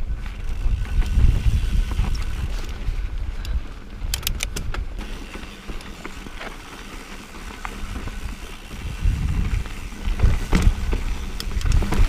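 Mountain bike riding down dirt and rock singletrack: wind buffets the microphone and the knobby tyres rumble over the ground, with scattered knocks and rattles. A quick run of clicks comes about four seconds in.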